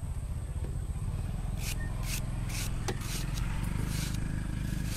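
A small knife shaving thin slices off an unripe green banana, a series of quick scraping cuts about two a second starting about a second and a half in, over a steady low rumble.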